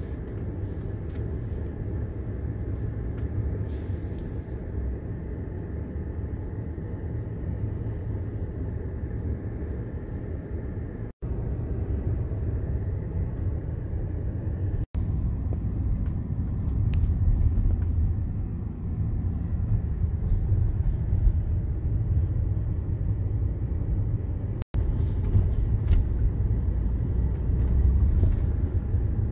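Steady low rumble of road and tyre noise heard inside a moving car, growing slightly louder in the second half. It cuts out briefly three times.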